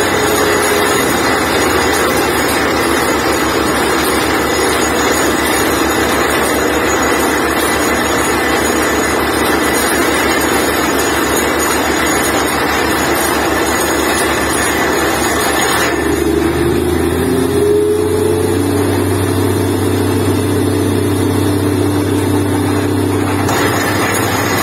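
Truck-mounted borewell drilling rig running loudly and steadily while drilling. About two-thirds through, the sound shifts to a deeper hum with a brief rising whine.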